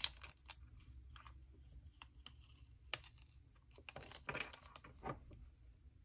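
Faint rustling and crinkling of a paper planner sticker being peeled up and handled, with a few light clicks and a scratchier stretch of peeling about four seconds in.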